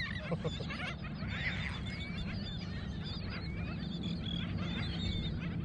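Many birds calling at once: a dense run of short, overlapping chirps over a steady low background noise.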